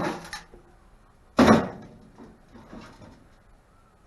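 A knock, then one loud clunk about a second and a half in, with fainter knocks after: parts of a microwave oven being handled during a teardown.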